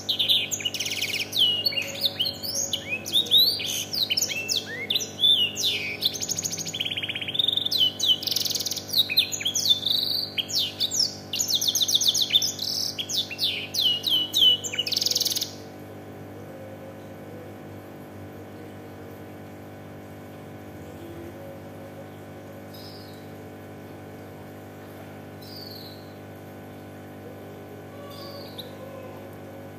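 A domestic canary trained on blackthroat song sings a long, loud run of rapid chirps, trills and warbles, then stops suddenly about halfway through. After that only a steady low hum and a few faint chirps remain.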